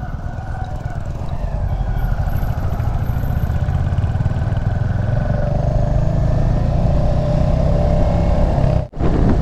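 Royal Enfield Hunter 350's single-cylinder engine running as the bike rides along, its low rumble growing steadily louder as it picks up speed. The sound cuts out for a moment near the end.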